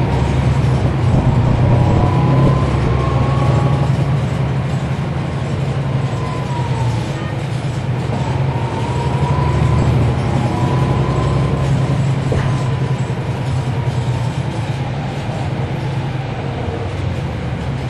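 Cummins ISL9 diesel engine of a 2012 NABI 40-SFW transit bus running under way: a steady low drone, with a faint whine above it that rises and falls a few times.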